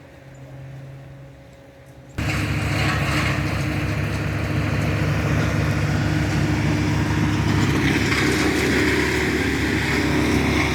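A large engine, likely the tree crew's machinery, running steadily with an even low pulsing. It starts abruptly about two seconds in, after a quiet outdoor background.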